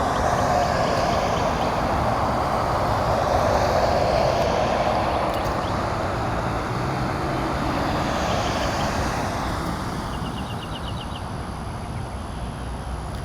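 Jet aircraft engine noise, a loud rushing that swells over the first few seconds and slowly fades after about ten seconds.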